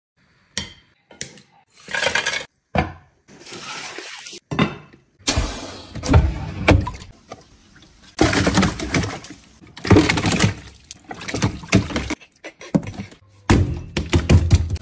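Splashing and knocking of live flatfish and water against stainless steel tanks and a sink: a run of short, loud clatters and splashes that start and stop abruptly.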